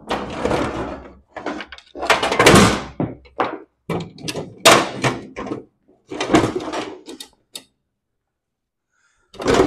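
Steel mower deck of a 1989 Craftsman lawn tractor being tipped over and set down on a diamond-plate steel table: a run of scrapes, clanks and thunks, the loudest about two and a half and five seconds in, with one more knock just before the end.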